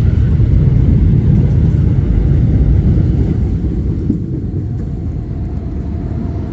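Low rumble of a G train passing on the elevated tracks, easing off about four seconds in.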